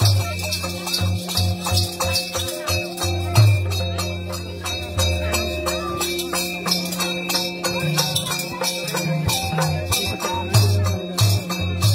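Nepali folk dance music for the Paisaru dance: fast, even jingling percussion like shaken rattles or small cymbals, over low held droning tones.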